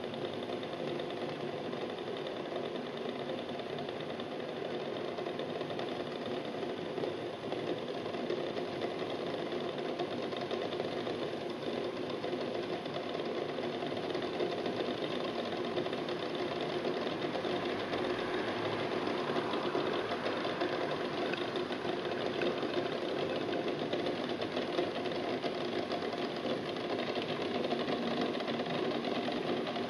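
Water coming to the boil in a stainless steel pot of eggs: a steady bubbling and rattling as the eggs jostle against the pot, growing slowly louder toward a rolling boil.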